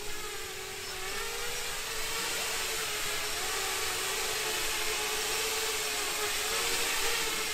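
7-inch FPV quadcopter's brushless motors and 6-inch propellers whining in flight, the pitch wavering slightly with the throttle. The sound grows louder as the drone passes close.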